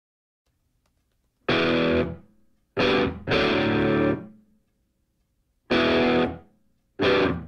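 Background music: distorted electric guitar chords struck in separate stabs, five in all, each ringing out and dying away, after about a second and a half of silence.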